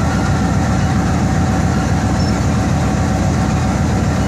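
RGE-20 diesel-electric locomotive's engine idling steadily, with a thin steady whine above the low running.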